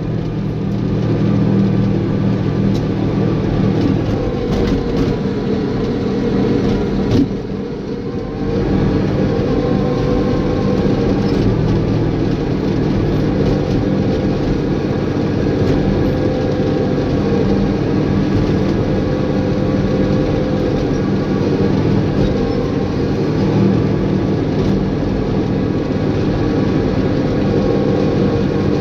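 Caterpillar bulldozer's diesel engine running steadily, dropping briefly about seven seconds in and picking up again a second or so later.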